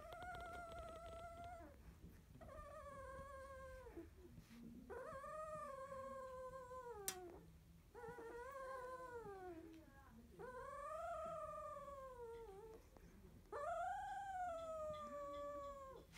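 16-day-old Labrador retriever puppy whining: six drawn-out, high whines in a row, each rising then falling in pitch, with short pauses between. A single sharp click about halfway through.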